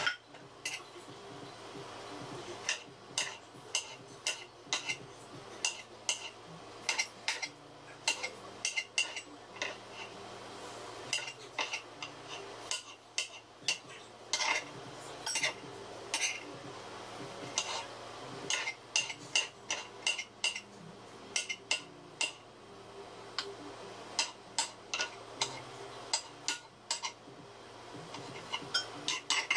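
Kitchen knife chopping tomato on a cutting board: uneven runs of quick, sharp taps as the blade strikes the board.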